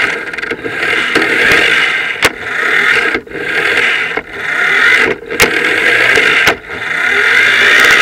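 Radio-controlled car running in bursts of throttle, its motor and gears whining and dropping back repeatedly, with sharp clicks and knocks in between, heard from a camera mounted on the car.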